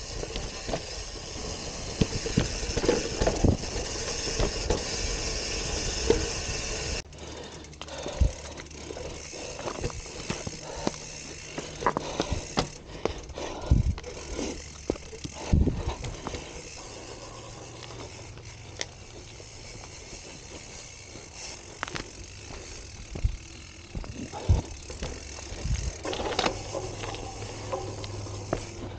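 Gravel bike riding a rough dirt singletrack: tyre and rolling noise, with the bike rattling and knocking over bumps and roots. The rolling noise is louder for the first several seconds, then drops suddenly to a quieter run dotted with frequent sharp knocks.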